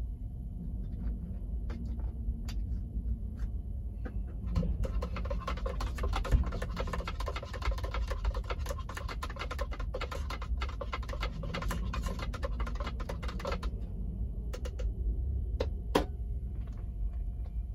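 Water poured from a plastic water bottle into a tumbler, the bottle crackling for several seconds in the middle as it is squeezed empty, over a steady low hum. A single sharp click near the end.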